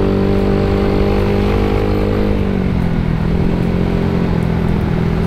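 Yamaha Mio scooter's engine, bored up to 150 cc and still being run in, running under way at gentle throttle. Its note holds steady, then drops to a lower steady note about two and a half seconds in.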